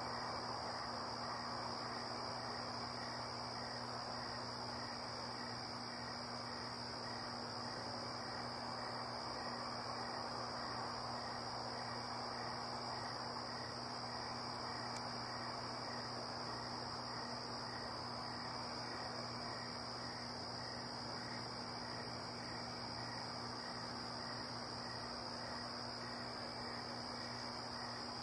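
Crickets trilling in an unbroken high, steady drone, over an even hiss and a faint low hum.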